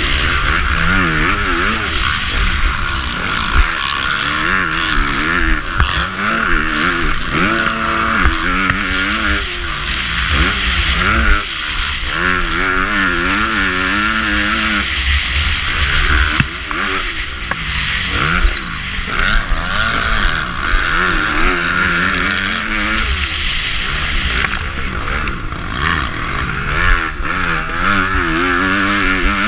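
450-class motocross bike engine under race load, its pitch rising and falling again and again as the rider revs through the gears and backs off for corners. Steady wind rush lies beneath it.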